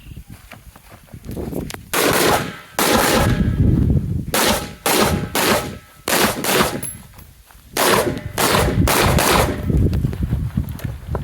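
Rifle shots fired in quick strings during a timed competition stage: about a dozen sharp reports, starting about two seconds in, in fast runs of two to four shots with short pauses between them, each followed by a ringing echo.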